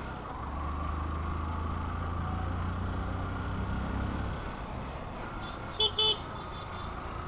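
Road traffic heard while riding: the low rumble of a vehicle engine for the first four seconds, then a vehicle horn honks twice in quick succession about six seconds in.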